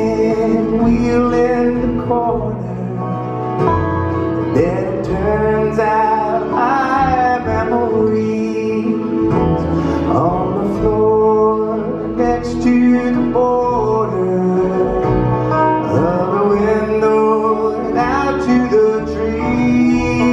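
Live bluegrass string band playing a song: fiddle, acoustic guitar, upright bass, banjo and a lap-played slide guitar together, at a steady loud level.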